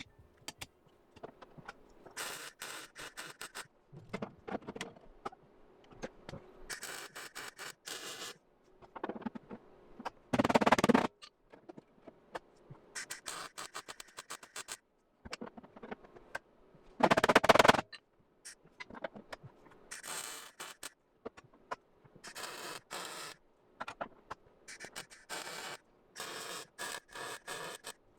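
Welder laying short stitch welds on car body sheet metal: a run of crackling bursts, each about a second long, with short pauses between. Two louder, deeper bursts come about ten and seventeen seconds in.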